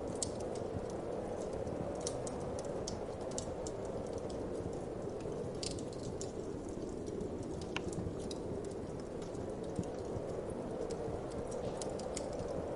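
Wood fire crackling, with irregular sharp pops and snaps, over a steady whoosh of wind.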